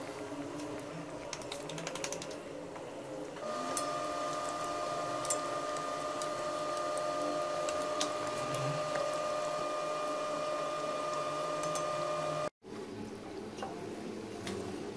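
Kachoris deep-frying in hot ghee in a karahi: steady sizzling with many small crackles. A steady humming tone runs under it from about three and a half seconds in, stopping at a brief dropout shortly before the end.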